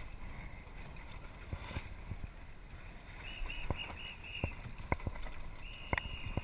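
Water washing and lapping along a small sailboat's hull, with wind noise on the microphone and scattered sharp knocks. Four short high squeaks come about three seconds in, and a longer one near the end.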